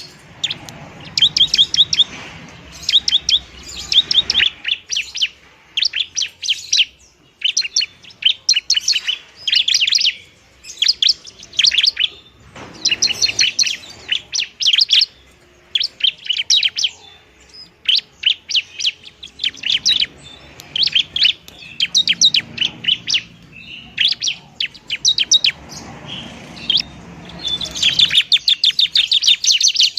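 Bar-winged prinia (ciblek) singing its aggressive fighting song: rapid, high-pitched trills of short chirps in bursts of a second or two, repeated with brief pauses.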